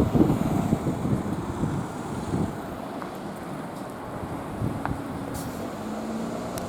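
Wind buffeting the microphone: an irregular, gusting low rumble, with a faint steady hum coming in near the end.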